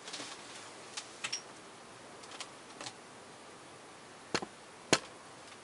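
Scattered sharp clicks and ticks, about eight in all and irregularly spaced, over a faint steady hiss. The two loudest come near the end, and there is no rumble of thunder.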